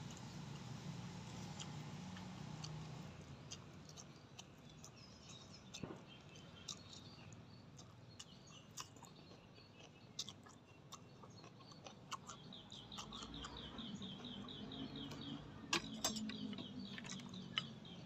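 Close mouth sounds of a man chewing spicy papaya salad, with scattered small clicks and smacks. A bird trills a fast run of high notes for a few seconds past the middle.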